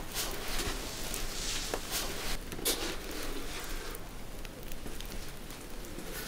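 Rustling and a few light knocks and clicks of objects being handled.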